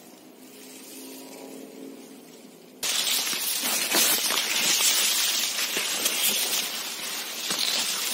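Quiet for about three seconds, then loud, continuous rustling and crackling of maize leaves brushing and scraping against bodies and the microphone as people push through a tall cornfield.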